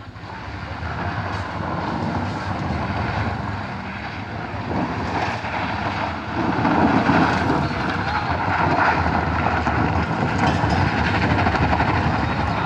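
A Honda compact SUV's engine revving hard under load as it climbs a steep loose-dirt hill, with its tyres scrabbling and spinning on dirt and gravel. The noise is loud throughout and gets louder about halfway through.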